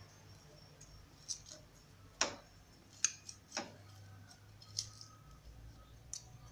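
A few light clicks and taps, about six spread out over several seconds, from hands handling and peeling a stove-roasted onion, over a faint low hum.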